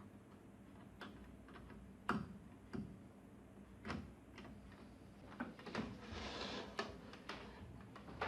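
Hands reconnecting cable harness connectors and handling the TV chassis: irregular small clicks and light knocks, with a brief rustle about six seconds in.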